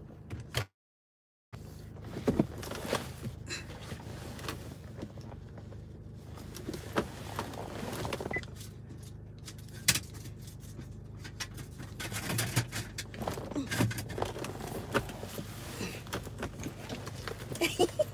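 Rustling, clicks and small knocks of a person shifting in a car seat and handling things, over the steady low hum of the car cabin. The sound cuts out completely for about a second near the start.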